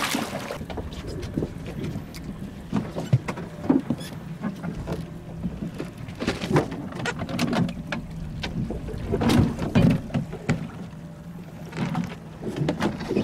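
Water slapping and splashing against a small fishing boat's hull, with irregular knocks and clatter on the boat, over a steady low hum.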